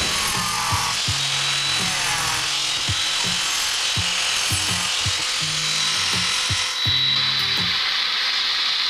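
Angle grinder with a glass-and-tile saw disc cutting a notch into a clay thin brick: a steady high-pitched whine and grinding hiss that eases slightly about two-thirds of the way through. Background music with a bass beat plays under it.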